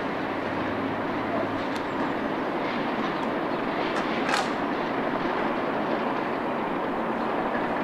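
Diesel-hauled passenger train running on curving track: a steady rumble with a low hum that fades out about two seconds in, and a brief sharp high-pitched sound about four seconds in.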